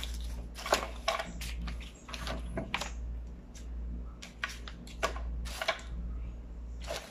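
Irregular clicks and taps from handling a smartphone and its packaging, over a steady low hum.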